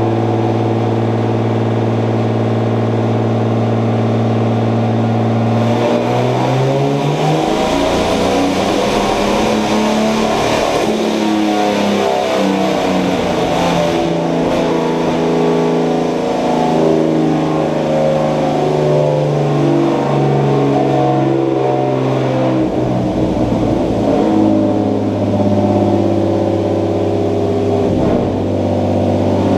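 Turbocharged BMW M50B25 straight-six in an E30, running with a misfire. It holds a steady speed for the first six seconds or so, then the revs are raised and change up and down repeatedly for the rest.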